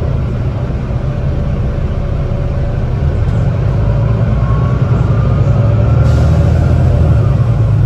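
Volvo B9TL double-decker bus's nine-litre six-cylinder diesel engine running, heard from inside the passenger cabin as a steady low drone. It grows a little louder past the halfway point, with a faint rising whine now and then.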